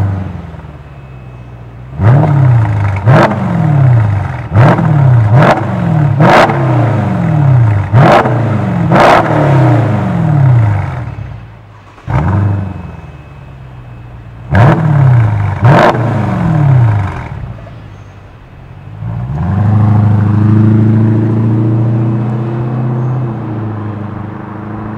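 Mercedes-Benz W212 E500's V8 through a MEC Design stainless-steel aftermarket exhaust, in its loud "Earthquake" sound version. It is revved in a series of sharp blips while standing still, each falling back to a deep idle, in two groups. About three-quarters of the way in, the car pulls away at normal throttle with a steady low drone that rises slowly.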